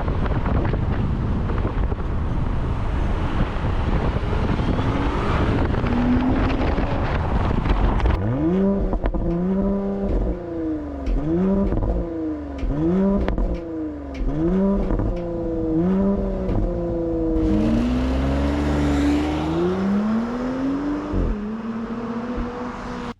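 Porsche Cayenne Coupe's turbocharged 3.0-litre V6: about eight seconds of loud, noisy engine and exhaust sound, then the engine revved again and again, each rev rising and falling back in about a second, with one longer climb near the end before the sound cuts off.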